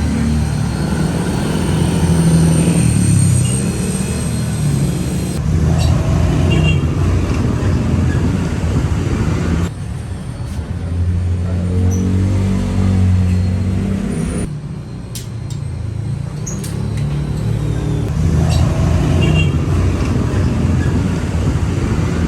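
Road and traffic noise from a car being driven, a steady low rumble that shifts abruptly a few times where the footage is cut.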